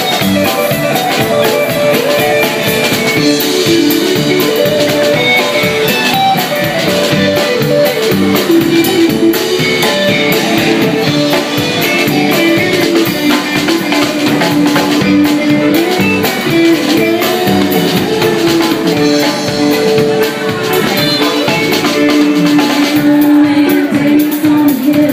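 Live band music: a fiddle carries the melody over electric guitar and drums. Near the end a woman starts singing.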